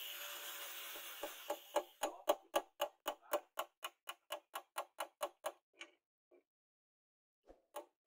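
An angle grinder's sanding disc spins down. It is followed by a long run of light, even hammer taps, about four a second, driving a brass pin into a wooden knife handle, with a few more taps near the end.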